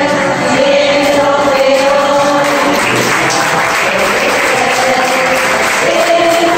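A group of older amateur singers singing together, joined from about halfway by audience applause over the singing, with the singing coming through clearly again near the end.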